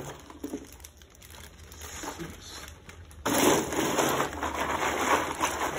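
Clear plastic zip-top bag crinkling as it is handled, faint at first and then suddenly much louder and continuous from a little past three seconds in.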